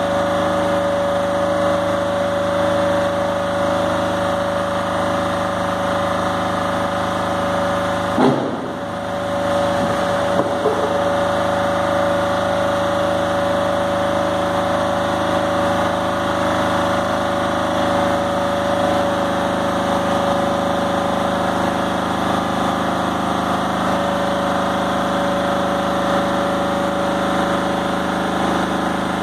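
Donkey engine running steadily to drive the hydraulic tipping gear as the ram raises the container, with a steady whine over the engine hum. About eight seconds in there is a single sudden knock, and the sound briefly dips.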